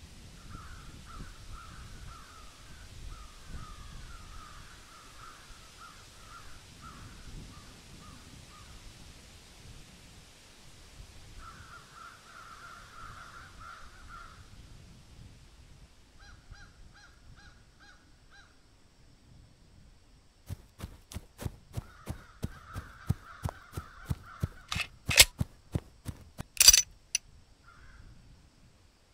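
Crows cawing over a low outdoor rumble. About two-thirds of the way through, a string of gunshots cracks out, around twenty in six seconds, irregularly spaced, with the last two loudest.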